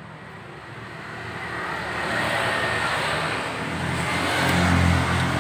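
Engine of a passing motor vehicle, growing steadily louder over several seconds.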